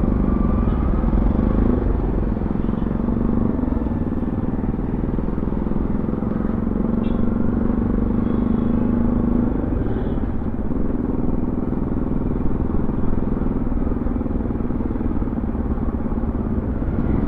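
Bajaj Pulsar NS200's single-cylinder engine running steadily at low speed in city traffic, its note dropping briefly a few times, with wind rumble on the microphone.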